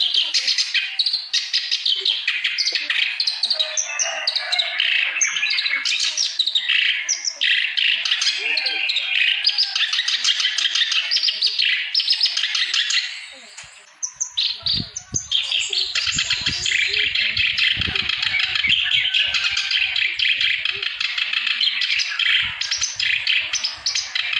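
Kerak basi (reed warbler) singing nonstop: a long, rapid, scratchy chattering song full of quick varied notes, broken by a short pause about halfway through, with a few soft low knocks just after.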